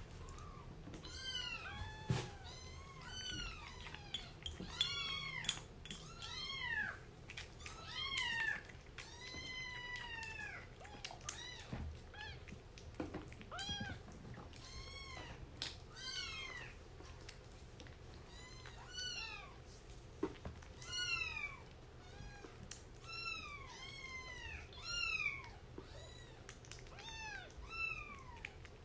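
Young kittens mewing over and over, about one high call a second, each call rising and then falling in pitch. A few faint knocks come in between.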